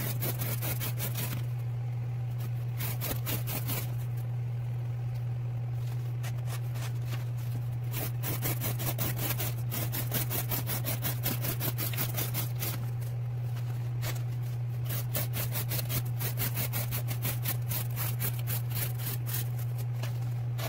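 A folding knife with an M390 steel blade slicing thin strips off corrugated cardboard in quick repeated strokes, each cut short and crisp, with a few brief pauses: the repeated cuts of an edge-retention test. A steady low hum runs underneath.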